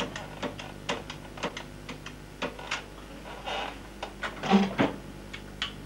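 Irregular clicks and knocks of a corded desk telephone being handled and dialled, with a louder clatter about four and a half seconds in.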